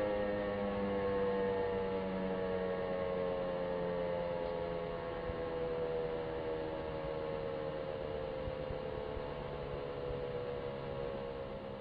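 Rooftop electromechanical warning siren winding down, its chord of tones slowly falling in pitch and fading.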